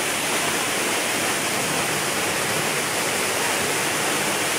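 Waterfall's falling water, a steady, even rush.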